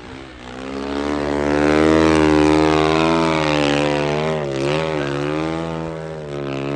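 Snow bike's dirt-bike engine held at high revs as it churns through deep powder. The drone swells louder over the first two seconds, dips briefly in pitch and recovers a little past the middle, then holds steady.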